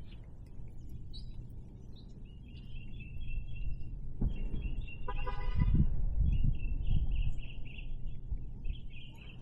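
Small birds twittering in short repeated trills, with one honk about a second long near the middle over a low rumbling.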